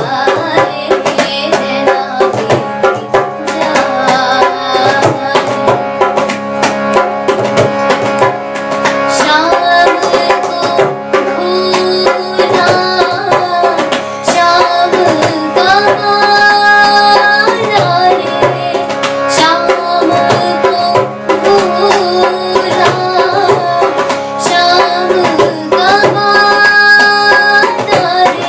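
A girl singing a slow Hindi film song in a classical style, with tabla strokes and a steady drone underneath.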